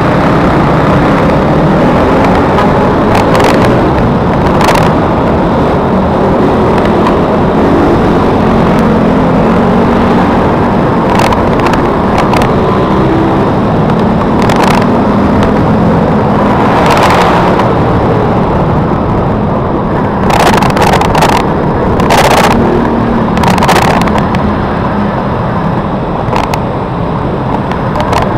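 Motorcycle engines running on the move in a group ride, their pitch rising and falling with the throttle, under a heavy rush of wind on the microphone. Short noisy bursts break through now and then, several close together about twenty seconds in.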